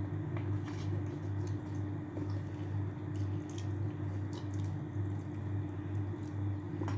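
Wet chewing and mouth sounds of people eating spaghetti, with scattered small clicks, over a steady low hum.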